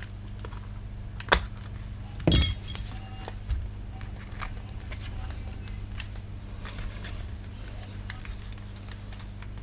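Plastic clicks and a brief clattering rattle as the PS5 DualSense controller's shell is pried at its retaining clips, the loudest clatter about two seconds in, with small scattered clicks after. A low steady hum runs underneath.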